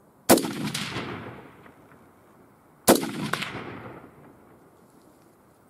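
Two shots from an AR-15 rifle in .223 Remington, about two and a half seconds apart, each a sharp crack followed by an echo that rolls away over about a second and a half.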